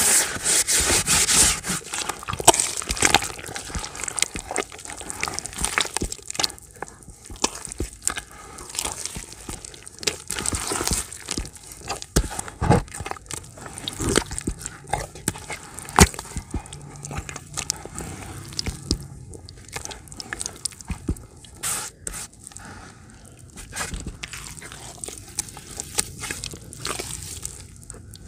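Hand squeezing and kneading crumbled grey dirt in a bucket of water: irregular wet squelching, crackling and splashing as the clumps break down into mud. It is loudest in the first couple of seconds.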